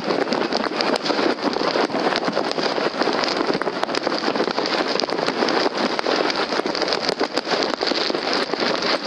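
Many fireworks going off at once across a town, their pops and crackles blurring into a continuous crackling, with sharper single bangs standing out now and then.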